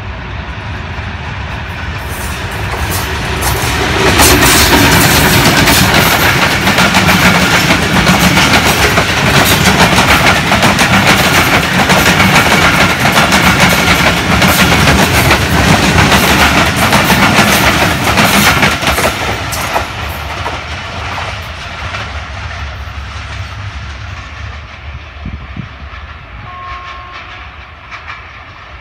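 Passenger train passing behind a PHA-20 diesel-electric locomotive: the locomotive's sound builds as it approaches and goes by about four seconds in, then the coaches' wheels clickety-clack over the rail joints for about fifteen seconds before the sound fades as the train pulls away. A brief faint tone sounds near the end.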